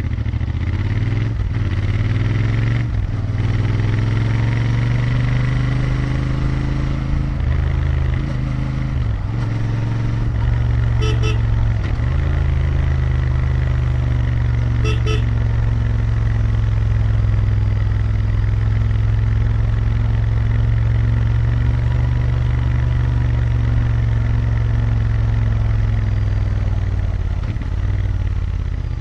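Royal Enfield Interceptor 650's parallel-twin engine and exhaust under way: the revs climb and drop several times as it pulls up through the gears, then hold at a steady cruise, and the note falls near the end as the throttle closes. A horn sounds briefly twice in the middle.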